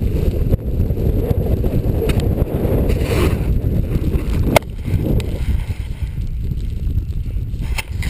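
Rumbling rush of wind on an action camera's microphone, mixed with a snowboard sliding over powder and ice during a run. There is a sharp click about four and a half seconds in.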